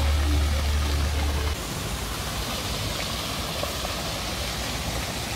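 Fountain jets splashing into a stone basin, a steady rush of falling water. A low rumble runs underneath and cuts off suddenly about a second and a half in.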